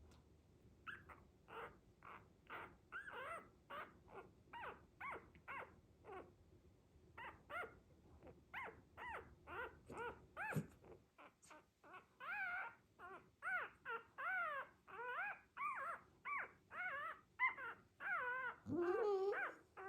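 Dachshund puppy whimpering in a long run of short, high cries, about two a second, with a longer, louder wavering cry near the end.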